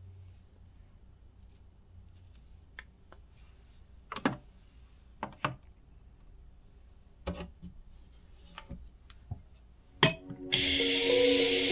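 Small clicks and knocks as toiletries, a cup and the cabinet are handled at a bathroom sink, with a sharper clack about ten seconds in. Near the end a faucet comes on with a loud rush of running water, and soft music begins.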